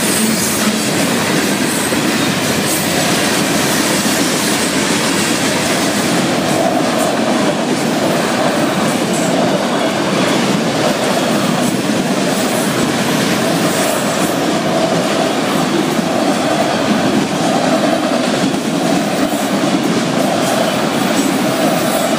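Florida East Coast Railway freight cars rolling past at speed close by: a steady loud rush of steel wheels on the rails with a continuous clatter, and a steady whine joining in about six seconds in.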